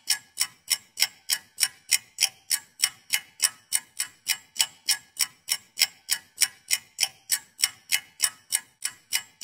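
Clock ticking sound effect: sharp, evenly spaced ticks at about three per second, laid over a sped-up stretch.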